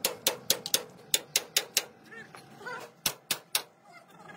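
Rapid, evenly spaced metal hammer blows, about five a second, driving a steel pin through a truck's leaf-spring eye and spring hanger; the blows stop about two seconds in, and three more strikes follow about a second later.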